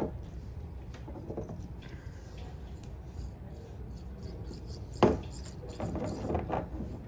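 Handling noise close to the microphone: rubbing and shifting, with one sharp knock about five seconds in, typical of a camera being moved and set on a tripod.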